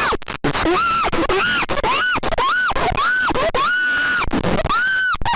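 A string of loud, shrill, scream-like shrieks, the alarm sound of a fan-made EAS alert: about eight in a row, each rising sharply in pitch, holding and falling away, the later ones drawn out longer.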